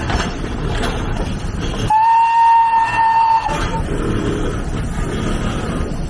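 Steam whistle of a Shay-type geared steam locomotive, blown once for about a second and a half on a single steady pitch. Before and after it there is a noisy rumble.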